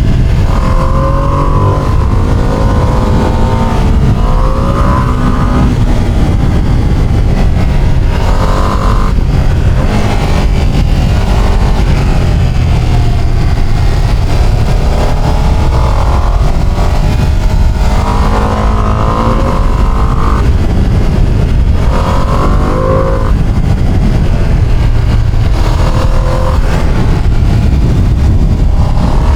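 Ducati Panigale motorcycle exhaust heard from the saddle while riding. The engine note climbs and drops again and again as the bike accelerates and eases off, over a constant low rumble.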